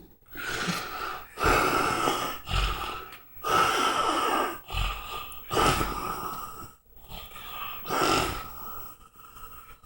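A man snoring loudly: about six heavy breaths, each a second or so long with short pauses between, the last one weaker as the run dies down near the end.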